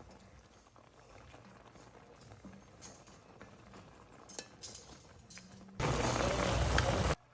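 A few light clinks of kitchenware, then a loud rushing noise for about a second and a half that cuts off suddenly.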